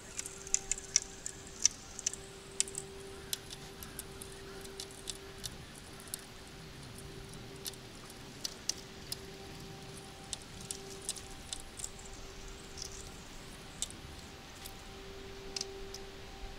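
Spinning reel on a feeder rod being wound in, with sharp irregular clicks, most of them in the first few seconds, as a small fish is brought to the bank. A faint steady hum runs underneath.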